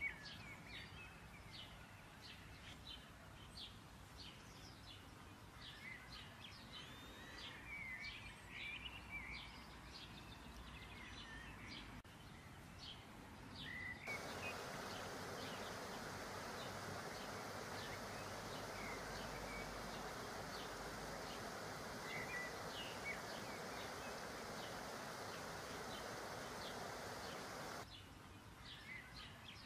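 Small birds chirping over and over, and about halfway through a steady hiss of dough deep-frying in hot oil sets in suddenly, cutting off again shortly before the end.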